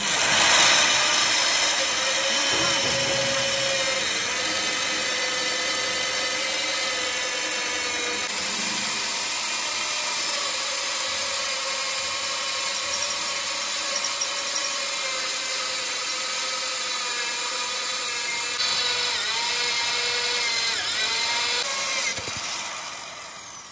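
An electric power tool motor runs steadily for about twenty seconds, with a high whine over a hiss. Its pitch dips slightly now and then as it is loaded, and it winds down near the end.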